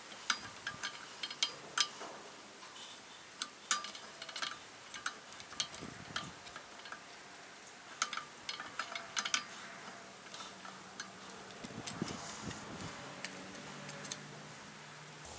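Forged steel padlock parts clicking and clinking irregularly as they are handled and pushed together in a dry fit. The parts are not seating, which the smith puts down to a bit of slag or something in the way.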